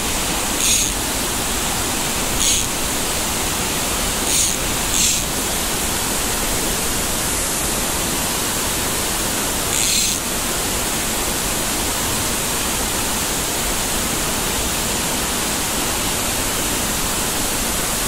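Mountain stream water rushing steadily, with five brief brighter hisses in the first ten seconds.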